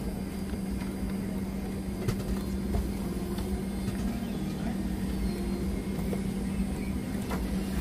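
Steady cabin hum of a Boeing 717 parked at the gate, with one constant low tone over a low rumble, a few faint clicks and faint passenger murmur.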